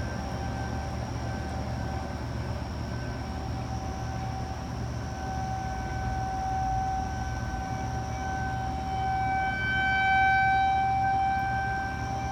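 Outdoor tornado warning siren sounding a steady tone at one pitch, swelling louder and fading back, loudest about ten seconds in.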